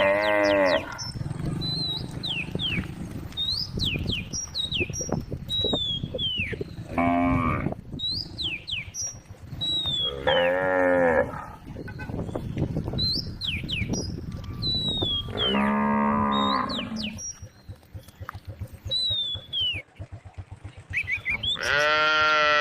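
Cows mooing, about five separate calls, each lasting about a second.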